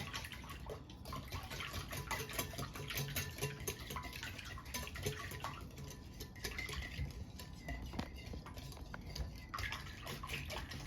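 Whisk beating a thin mixture of eggs, sugar and milk in a bowl: a steady run of small liquid splashes and light clicks.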